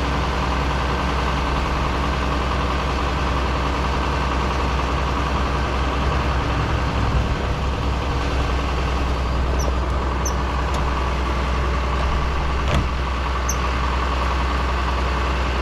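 Engine idling steadily, with a single sharp knock about thirteen seconds in.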